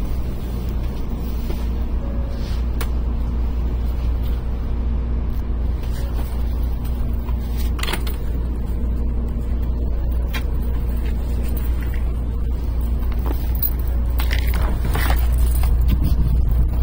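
Shinkansen train running, a steady low rumble with a faint hum and a few scattered clicks, growing slightly louder near the end.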